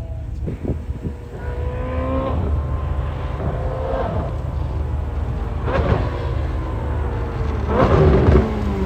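Straight-piped Ferrari 458 Speciale V8 running on the road, its revs rising and falling over a steady low rumble. Sharp cracks come about half a second in, near six seconds and at about eight seconds, the last the loudest.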